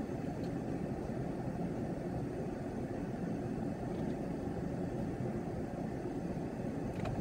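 Steady low rumbling room noise with no distinct events.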